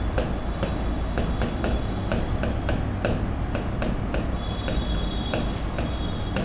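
Marker pen writing on a board: a string of quick, irregular taps and short rubbing strokes as letters are drawn, over a steady low hum.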